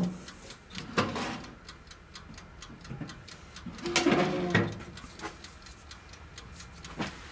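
Steady, fast ticking of a mechanical timer, most likely the toaster oven's wind-up dial timer counting down. A sharp glass clink at the start as the jar of coating powder is set down, and a brief louder sound about four seconds in.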